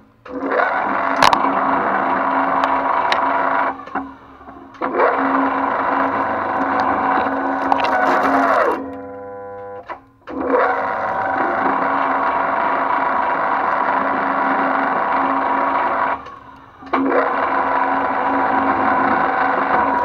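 Twin-shaft shredder running with a steady whine as its hooked cutters chew a bundle of network cable. The drive drops out briefly three times, the longest near the middle winding down in pitch to a stop, as the cable bundle gets the shredder stuck.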